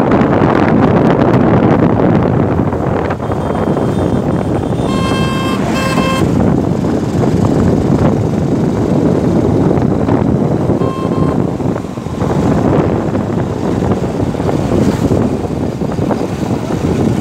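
Motorcycle on the move, with a loud, steady rush of engine and wind noise. A horn beeps twice, short and close together, about five seconds in, and once more, fainter, about eleven seconds in.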